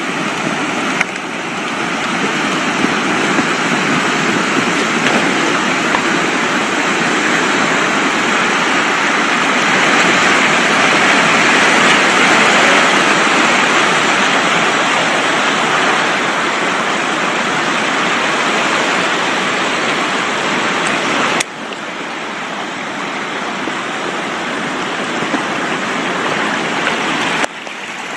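Steady rushing and churning of water as the swamp surges and spreads, with trees sliding into it. The noise swells towards the middle and drops suddenly twice, about two-thirds of the way through and again near the end.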